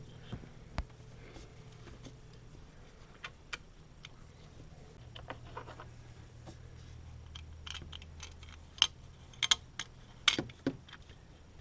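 Scattered metallic clicks and clinks of hand tools and small metal parts being handled, with a quick run of louder, sharper clicks in the last few seconds, over a steady low hum.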